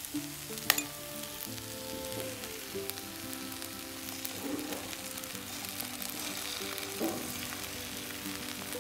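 Bread cubes frying in an oiled pan, sizzling steadily, with one sharp tap about a second in as a knife edge cracks an egg shell; the raw egg then drops onto the hot bread.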